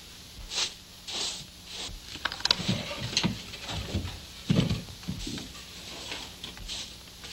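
Footsteps and scuffing on a wooden floor, with a string of irregular knocks and scrapes.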